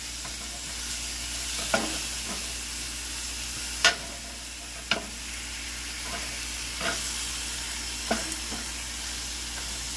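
Onions, sweet peppers and tomatoes sizzling in a stainless steel frying pan while a wooden spoon stirs them. The spoon knocks against the pan about five times, loudest near the middle.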